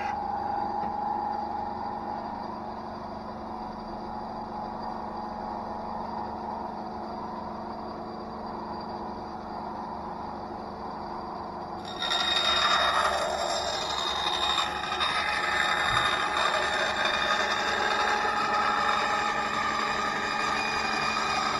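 Einhell TC-SB 200/1 benchtop bandsaw running with a steady motor hum. About twelve seconds in the blade bites into a thin plywood sheet, and the sound turns suddenly louder with a rasping hiss of cutting that carries on.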